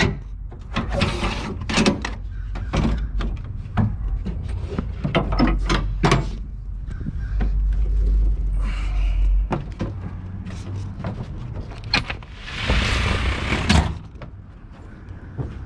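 Handling clatter around a pickup bed: a string of knocks and clacks as a long metal cargo bar is lifted and bumped against the plastic bed liner and tailgate, with one rough scraping rush lasting over a second near the end. A low rumble sits on the microphone through the first half.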